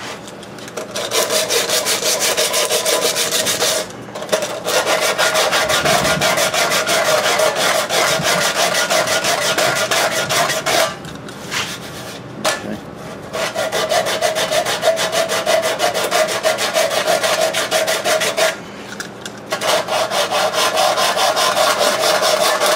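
Hand sanding of hardened body filler on a sheet-metal engine shroud with coarse 36-grit sandpaper on a wooden sanding block: rapid back-and-forth scraping strokes, knocking down high spots. The sanding stops briefly about four, eleven to thirteen and nineteen seconds in.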